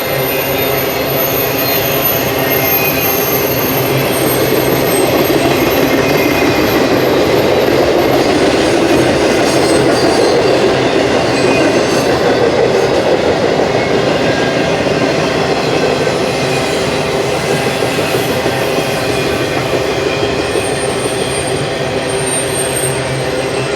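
BNSF intermodal freight train passing: a steady rumble of wheels on rail that grows louder toward the middle, with high-pitched wheel squeal near the start and again near the end.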